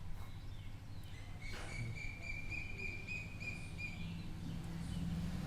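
Steady low background hum, with a thin high-pitched whistling call starting about a second and a half in and lasting about two and a half seconds.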